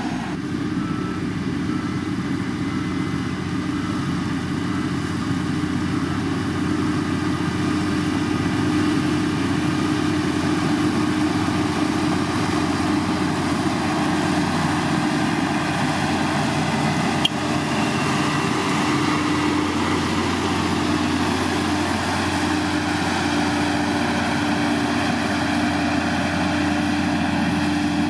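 Heavy road-construction machine's diesel engine running steadily, with a constant hum and one brief click about 17 seconds in.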